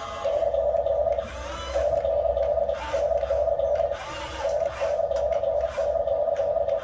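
Small electric motor of a radio-controlled construction model whining in short spurts, stopping and restarting every second or so as the controls are worked.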